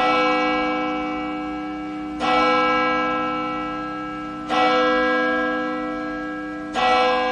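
A single church bell struck four times at a slow, even pace, about two seconds apart, each stroke ringing on and slowly dying away before the next.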